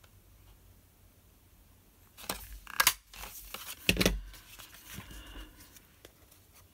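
Handheld paper punch snapping through cardstock to cut a half-circle notch, two sharp clacks a little over two seconds in. A thud follows as the punch is set down, then paper rustles as the card is handled.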